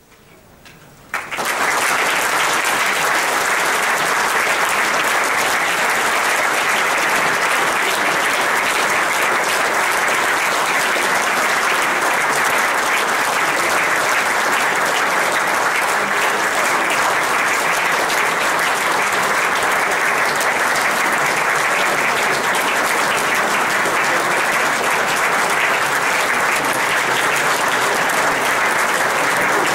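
A concert audience breaking into steady applause about a second in, at the end of a wind band's performance.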